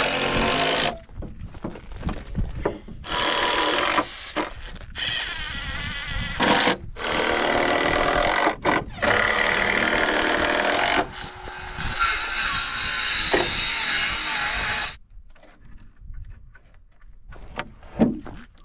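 Circular saw cutting through lumber in several runs with short pauses between them, stopping about fifteen seconds in.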